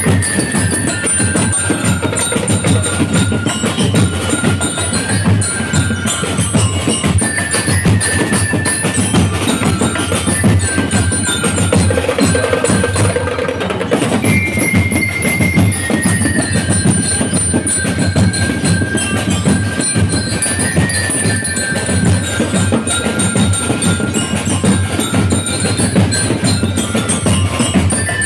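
A drum and lyre band playing: metal bell lyres ring out a melody over a steady drum beat.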